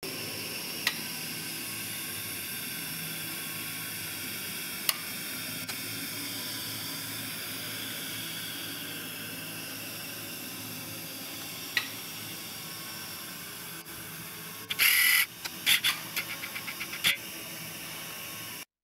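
Bethlehem glassworking bench torch burning with a steady hiss. A few sharp clicks punctuate it, and about fifteen seconds in there is a short loud burst of noise followed by a quick run of ticks.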